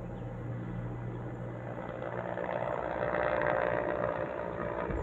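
Distant helicopter flying over, its rotor and engine a steady hum that grows louder about two seconds in.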